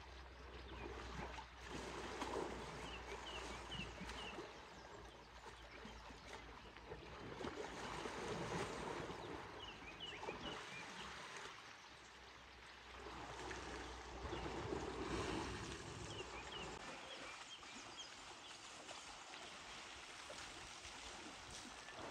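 Water sloshing and splashing as elephants wade and bathe in a dam. The sound swells and fades every few seconds.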